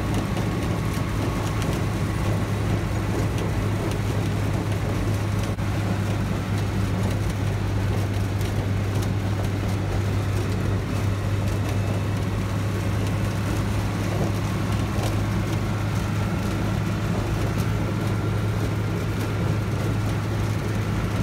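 Willys CJ-3B Jeep's four-cylinder F-head engine and road noise heard from inside its homemade metal hard top while driving: a steady drone with a strong low hum, and scattered light rattles.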